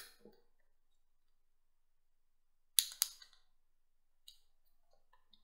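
Two sharp plastic clicks about a quarter second apart, roughly halfway through, from fingers working the open battery compartment in the base of a plush dancing cactus toy, followed by a few faint handling noises.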